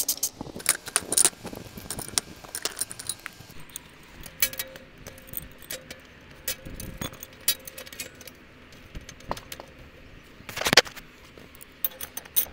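Metal clinking and clicking of a wrench and an aluminium lightning-protection clamp as the clamp's nut is tightened onto an aluminium rod, with a quick run of clicks and one loud clank near the end.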